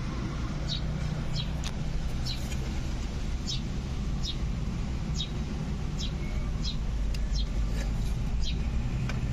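A small bird chirping repeatedly, short high chirps about one to two a second, over a steady low rumble.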